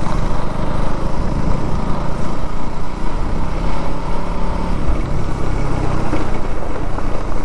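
Motorcycle engine running steadily while riding, with road and wind noise.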